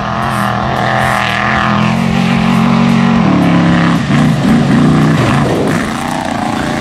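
Off-road race truck's engine running hard on a dirt course, holding a steady note, then stepping up in pitch about three seconds in and wavering up and down with the throttle.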